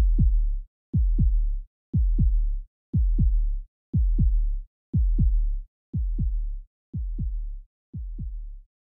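Heartbeat sound effect in an intro: deep double thumps like a lub-dub, about one pair a second, each thump dropping in pitch, slowly fading.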